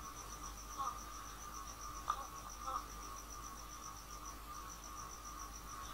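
Faint, steady chirping of an insect: a high pulsing note about seven times a second, pausing briefly a little after four seconds in, over a low hum. A few soft short sounds come about one and two seconds in.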